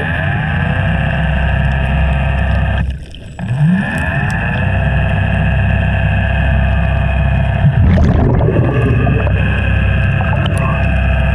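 Motorboat engine heard underwater as a steady droning whine. About three seconds in it briefly drops away, then its pitch rises quickly and settles again.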